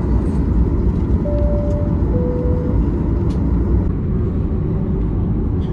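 Steady low rumble inside a Boeing 737-800 cabin, with a two-tone cabin chime about a second in: a higher note, then a lower one, each about half a second long.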